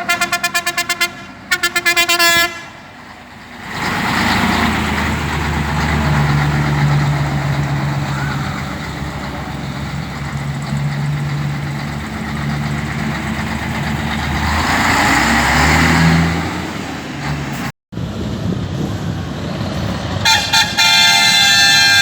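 Truck air horns blasting in quick rapid pulses, then heavy truck diesel engines running and revving for several seconds, louder for a moment toward the end. A long multi-tone air horn comes in near the end.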